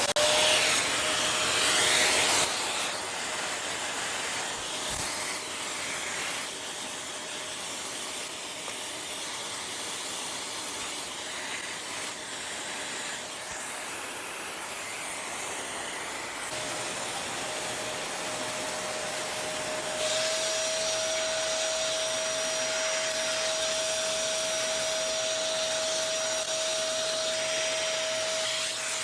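Small vacuum cleaner switched on, its motor whining up to speed, then running steadily as it sucks dust out from inside a TV. About two-thirds of the way through, its tone grows stronger and a thin high whine joins in.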